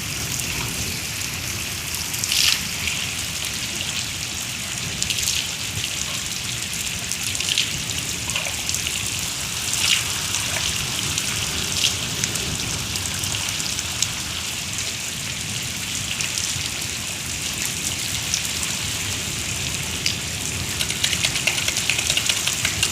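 Rain falling steadily, with now and then a louder drop hitting close by and a denser patter of drops near the end.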